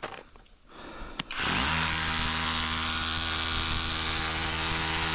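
A power tool's motor starts about a second and a half in, spins up quickly and then runs steadily at full speed, an even whine over a loud hiss. A single click comes just before it starts.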